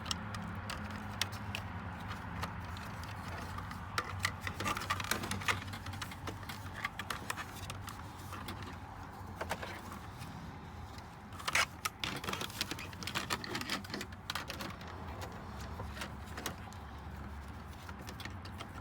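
Irregular small plastic clicks, taps and scraping as a truck's dash light switch and its wiring are worked by hand back into the dash panel, with one sharper click about two-thirds of the way through. A steady low hum runs underneath.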